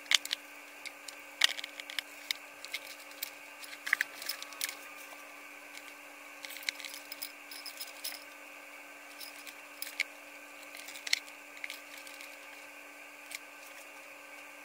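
Scattered light clicks and taps of small tools and a cable being handled on a workbench, with a brief squeak about four seconds in. A faint steady hum runs underneath.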